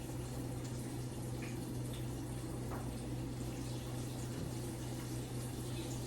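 Chicken breasts frying in hot grease: a steady sizzle with faint crackles over a low steady hum.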